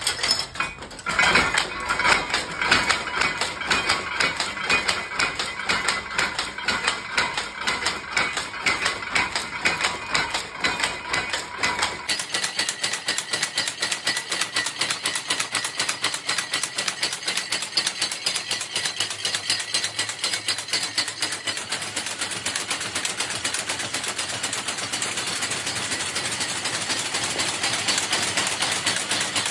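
Shuttle powerlooms weaving cloth, running with a fast, rhythmic mechanical clatter. The sound changes abruptly about twelve seconds in.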